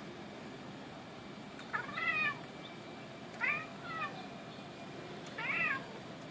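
Pet cat meowing in three short, high-pitched calls, each rising and falling, about one and a half to two seconds apart, as it watches pigeons.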